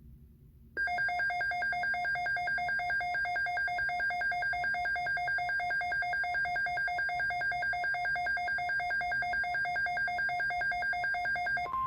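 Weather radio alert alarm: a loud, rapidly pulsing electronic tone that starts about a second in and runs for about eleven seconds, ending with a brief steady single tone. It heralds a severe thunderstorm watch message.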